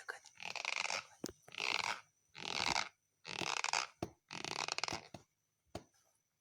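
A person snoring loudly in quick, noisy bursts, about one every second, likened to the exhaust of a Yamaha RX-King two-stroke motorcycle. The snoring stops about five seconds in, followed by one short click.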